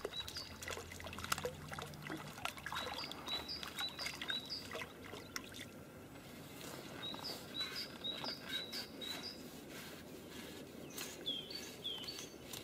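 A small songbird chirping in several quick runs of short high notes, over light splashing and dripping of water as a hooked crucian carp is played at the surface and lifted out.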